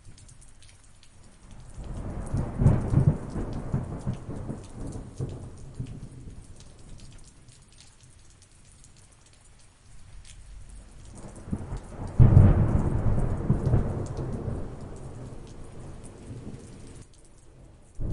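Thunderstorm: two rolls of thunder over steady rain pattering. The first builds about two seconds in and rumbles away over several seconds; the second, louder, breaks sharply about twelve seconds in and rolls off slowly.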